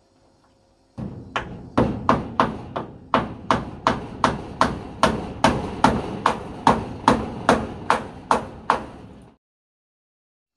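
Hammer blows on wood, a steady run of about twenty strikes at two to three a second, starting abruptly and stopping abruptly near the end.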